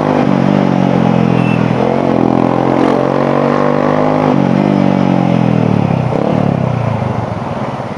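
A 150 cc motorcycle engine running under way. Its note climbs for the first few seconds, then sinks steadily through the second half as the bike slows, getting quieter near the end.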